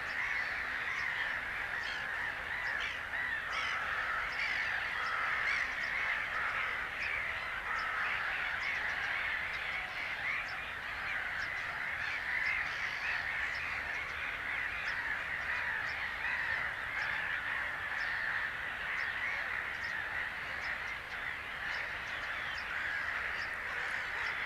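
A dense chorus of many birds calling at once, a continuous chatter of overlapping calls at a steady level.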